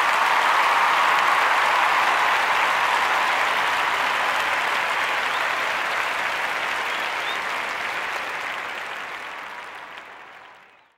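A crowd applauding, fading out gradually over the last few seconds.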